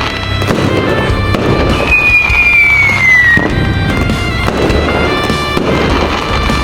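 Fireworks going off in a dense crackle over playing music, with one whistle falling in pitch about two seconds in.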